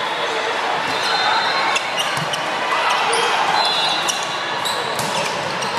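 Indoor volleyball rally on a hardwood gym court: sneakers squeaking, the ball being struck, and players and spectators calling out over the general hubbub of a large gym.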